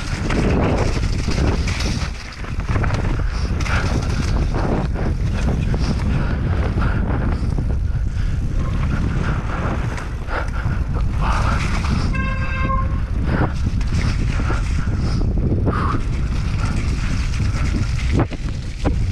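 Mountain bike descending a rough trail at speed: wind buffeting the microphone over the rumble and rattle of tyres and frame on rocks and roots. About twelve seconds in comes a brief, steady honking tone lasting under a second.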